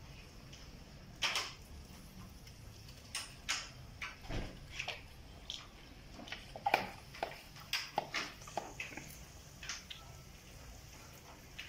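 Hand-pump pressure sprayer squeezed in short, irregular squirts, spraying water onto the fins of an air-conditioner's outdoor condenser coil, with scattered light clicks and taps over a faint steady hiss.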